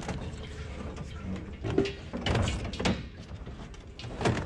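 Rummaging through junk in a dumpster: a series of scattered knocks, clunks and scrapes of objects being moved, with a sharper knock just before the end.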